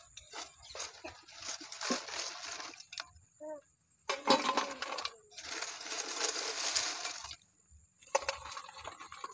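Crisp fried potato chips rustling and crackling as handfuls are scooped from an aluminium pot and dropped onto an aluminium plate, in several bursts with short pauses between.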